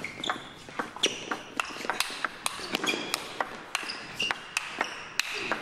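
Table tennis rally: the celluloid ball clicking off bats and table about four times a second, with short high squeaks of shoes on the court floor between the hits.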